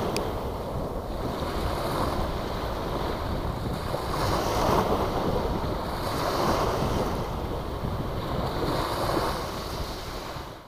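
Small sea waves breaking and washing up a pebble-and-shell beach, a continuous surf wash that swells as each wave breaks, about every two seconds.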